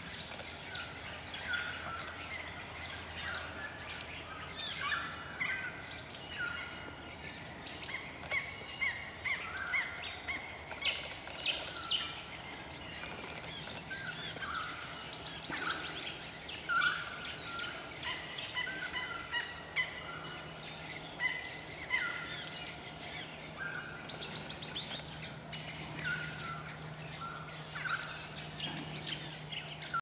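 Busy chorus of a feeding flock of Swift Parrots, mixed with Little Lorikeets and Noisy Friarbirds: many short, high chirps and calls overlapping without a break.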